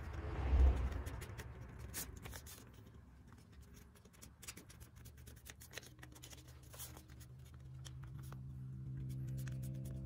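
A sheet of paper rustling and being creased by hand as it is folded, with small taps and scrapes on the table and a louder rustle about half a second in. Music comes in near the end.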